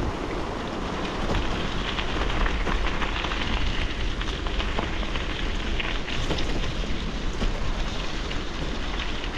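Bicycle tyres rolling downhill over loose gravel: a steady crunching rush with many small clicks of stones, and wind rumbling on the microphone.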